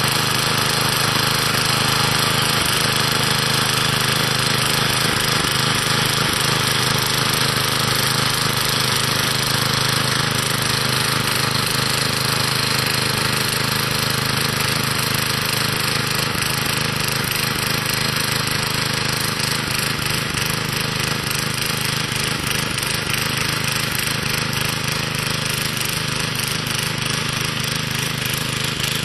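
Old garden tiller's small engine, retrofitted to run on propane gas, running steadily under load as its tines dig a row; it grows slightly fainter as the tiller moves away.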